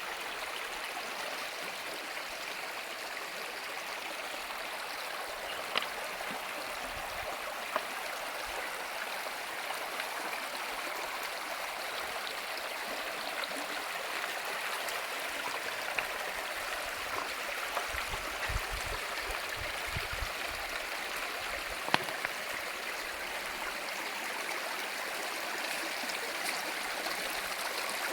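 Stream water running in a steady rush, with a few sharp clicks or taps scattered through it.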